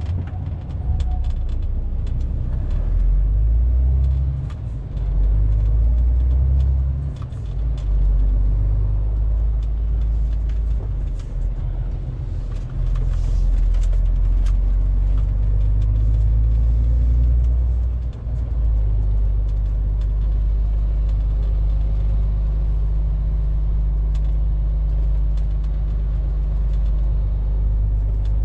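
MAN TGX 470 truck's straight-six diesel running at low city speed, heard inside the cab as a deep, steady rumble. Its pitch steps up and down, with brief dips in level about 5, 7 and 18 seconds in as the gearbox shifts.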